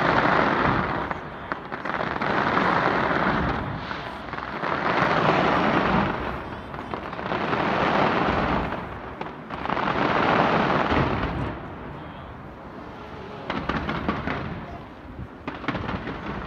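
Fireworks fired from the sides of a skyscraper: dense bangs and crackling that swell in waves about every two and a half seconds. The volleys thin out to scattered crackles for the last few seconds.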